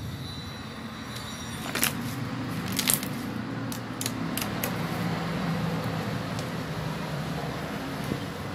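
Slime being kneaded by hand with floam polystyrene beads worked into it: sticky clicks and crackles, the sharpest about two and three seconds in, over a steady background hum.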